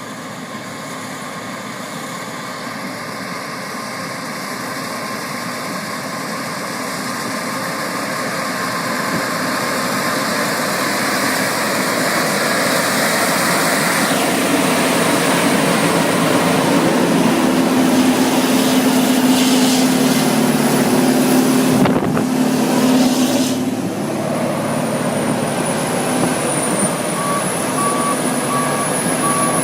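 Heavy diesel machine running steadily and growing louder as it works, with a beeping warning alarm repeating near the end.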